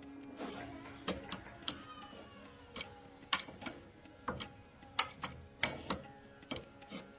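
A series of irregular sharp clicks and knocks, about a dozen spread over several seconds, with quiet gaps between them.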